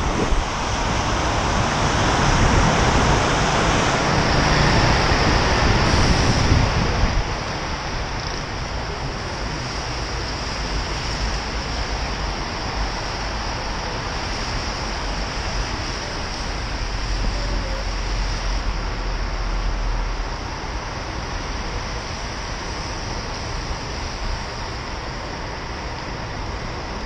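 Wet-road city traffic noise with tyre hiss on wet tarmac, picked up by a bike-mounted camera. A louder rushing noise for about the first seven seconds, then a steadier, quieter traffic background.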